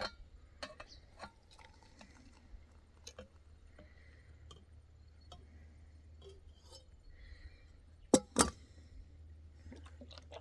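Camp cookware being handled while making tea: scattered light clinks and taps, with soft liquid sounds. Two sharp knocks a little past eight seconds in are the loudest sounds.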